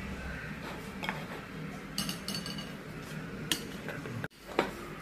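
A few light clinks and taps of a kitchen knife and dishes against a ceramic plate, the loudest a little over four and a half seconds in.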